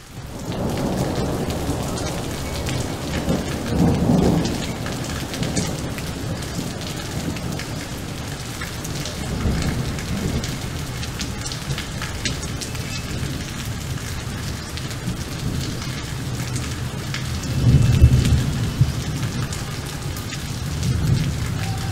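Thunderstorm: steady rain falling with rolls of low thunder, the loudest about four seconds in and again near eighteen seconds.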